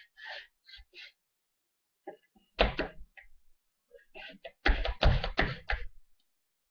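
Hands and a bone folder rubbing glued paper flat onto a cardboard board: short dry scraping rustles. Then two loud bouts of knocks and rustling, about two and a half and five seconds in.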